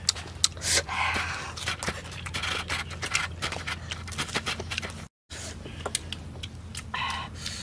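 Close-up eating sounds: chewing, wet lip smacks and mouth clicks, with short breathy exhales, over a steady low hum. The sound cuts out briefly about five seconds in.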